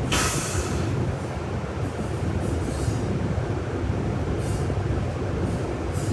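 Inside a city bus: a steady low engine and road rumble, with a strong hiss in the first second and a few shorter hisses later on.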